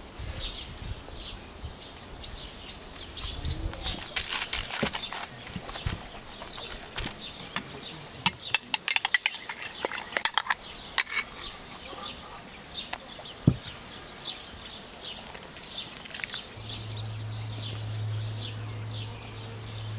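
Small birds chirping repeatedly, with bursts of clicking and clinking of utensils, most of it a little before the middle, and one sharp click later on. A low steady hum comes in near the end.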